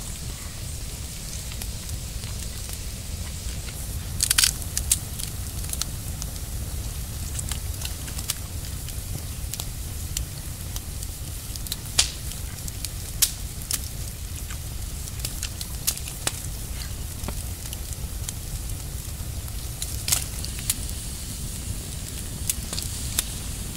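Campfire crackling, with scattered sharp pops over a low steady rumble.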